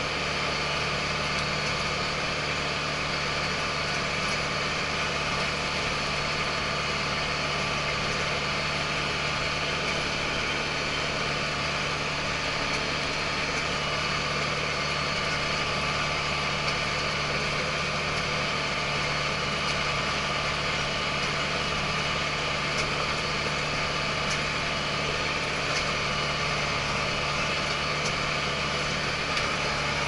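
ISEKI TJV tractor's diesel engine running steadily while the tractor tills with its rotary tiller, heard from inside the closed cab: an even drone with a constant low hum.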